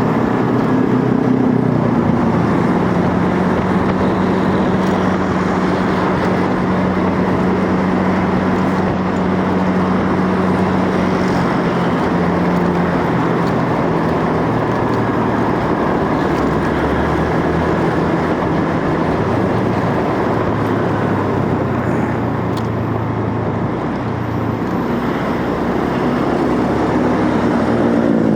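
Motorcycle running along the road: a steady engine hum over a constant rush of air and road noise. The engine note drops about halfway through and climbs again near the end.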